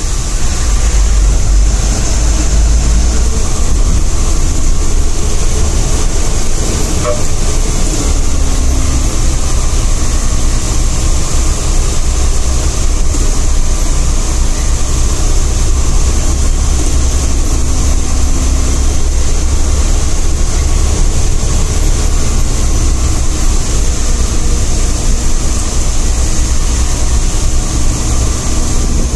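Sleeper bus running along a mountain road, heard from inside the cabin: a steady deep rumble of engine and road with a constant hiss over it.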